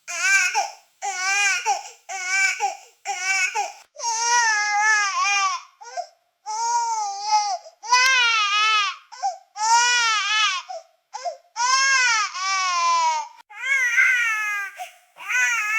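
Baby crying in a run of wails, short cries at first and longer ones from about four seconds in, each bending up and down in pitch, with brief catches of breath between them.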